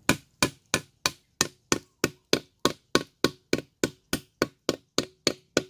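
Steel pipe tool chiselling into the trunk of a trôm tree: a steady run of sharp knocks, about three a second, each with a short faint metallic ring. It is cutting through the bark into the wood to open a hole for gum tapping.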